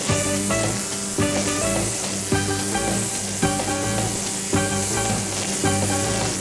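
Instrumental background music with a steady beat and chord changes, over a steady high hiss.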